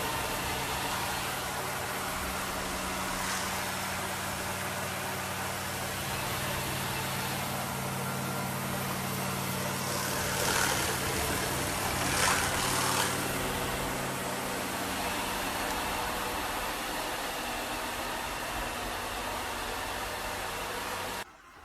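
Eureka robot vacuum's suction motor running steadily, a rush of air over a low hum, with a few louder surges of airflow around the middle. It stops abruptly near the end.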